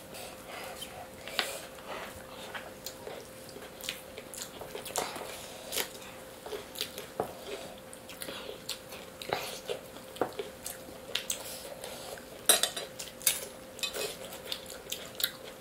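Eating by hand from steel plates: fingers scooping and mixing biryani rice on the metal, with irregular light clinks and taps against the plates and bowls, and chewing. A faint steady hum sits underneath.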